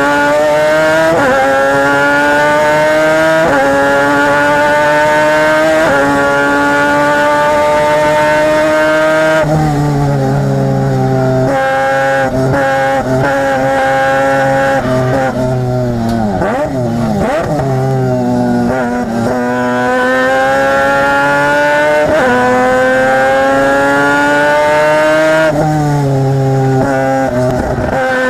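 Mazda RX-8 race car's peripheral-ported 13B rotary engine, heard close up at the exhaust, revving hard and climbing through three quick upshifts. Around the middle it comes off the throttle and blips through downshifts, then pulls up through the gears again near the end.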